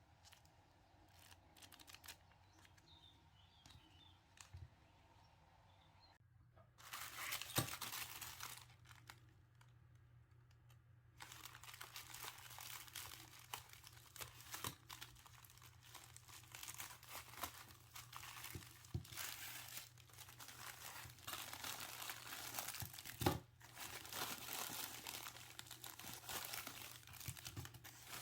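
Packaging crinkling and rustling as it is unwrapped and handled. It comes in a burst about six seconds in, pauses briefly, then runs on steadily from about eleven seconds, with a few sharper clicks.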